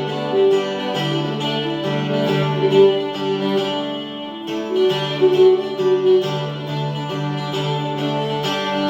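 Acoustic guitar and violin playing an instrumental passage between sung verses, with long held notes over the plucked guitar.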